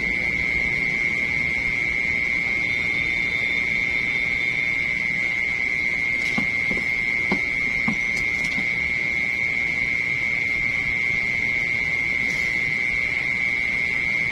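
A steady, high-pitched buzzing tone that never changes, with a few faint clicks about halfway through.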